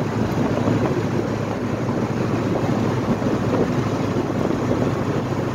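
1985 Ford Mustang GT's 5.0-litre V8 running steadily at cruising speed, mixed with wind and tyre noise, heard from inside the convertible's cabin.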